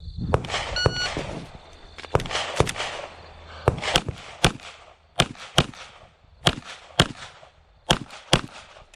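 Pistol shots fired in quick pairs, about a dozen in all, each a sharp crack with a short echo, with a brief beep about a second in.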